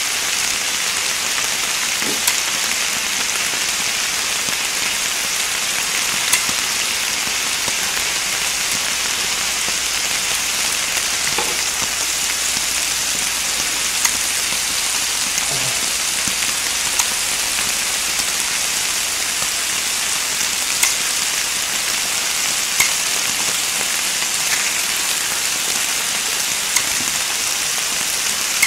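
Pork belly sizzling steadily on a hot grill plate, with a few short sharp clicks of metal tongs and scissors handling and cutting the meat.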